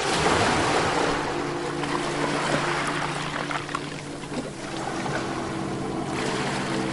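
Ocean waves on a beach: a wave breaks at the start and its wash eases off over the next few seconds, and another swell rises near the end. A soft, sustained music drone runs underneath.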